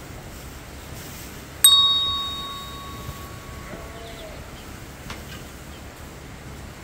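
A single bright bell ding, the chime of an on-screen subscribe-button animation. It starts sharply about a second and a half in and rings away over about two seconds.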